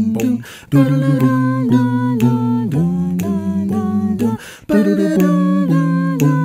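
Several voices singing wordless a cappella harmony, holding chords that shift in steps, with brief breaks about half a second in and again a little past four seconds.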